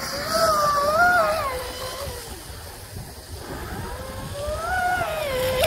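RC mono boat's Traxxas Velineon 380 brushless motor and 630 Octura propeller whining at speed, the pitch rising and falling with the throttle. It fades in the middle and swells up again near the end.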